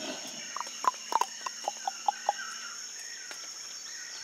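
A person making a quick series of tongue clicks, about a dozen sharp clicks, some in quick pairs, over less than two seconds in the first half. They are a contact signal that tells wild gorillas that people are nearby and not a threat.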